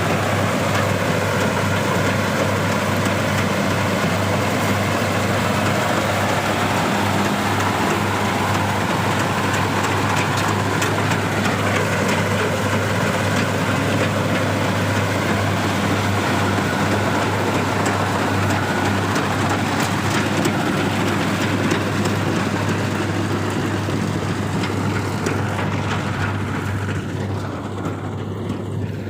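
Kubota DC-60 combine harvester running steadily while cutting rice, a constant low engine hum under dense mechanical clatter, easing off slightly near the end.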